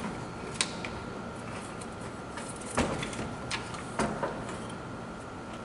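Scattered knocks and clunks from a radiator and coolant fan assembly being handled and fitted into the engine bay. There are about five hits, the loudest about three and four seconds in.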